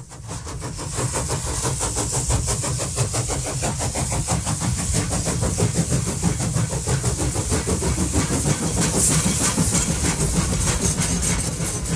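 Model train running past: a steady low rumble with rapid, regular clicking from the locomotive and its ore cars rolling on the track, getting louder over the first second or two.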